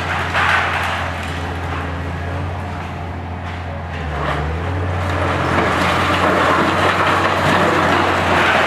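Diesel engine of a Hitachi ZX870-3 high-reach demolition excavator running steadily, its note dipping briefly about four seconds in, with concrete rubble crumbling and falling from the building it is tearing down. The crackle of the falling debris grows louder from about halfway.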